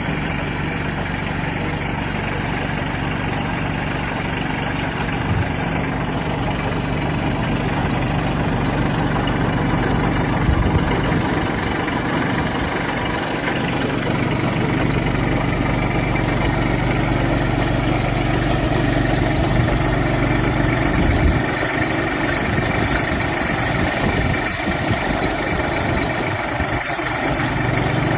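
Small 15-horsepower Kubota tractor's engine running steadily with its rotary tiller. The deep part of the sound drops away and comes back a couple of times in the second half.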